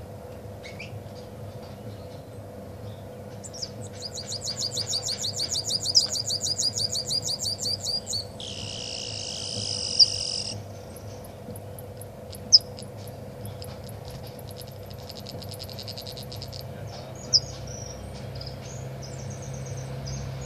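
A caged songbird singing, a 'machine-gun' singer: a rapid trill of evenly repeated high notes that grows louder over about four seconds, then a harsh buzzy note of about two seconds, scattered chirps and a fainter trill later on.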